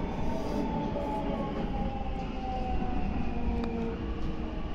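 Meitetsu 9500 series electric train running, heard from inside the car: steady rumble of the wheels and running gear, with the thin whine of the traction motors and inverter slowly falling in pitch as the train slows. A single sharp click about three and a half seconds in.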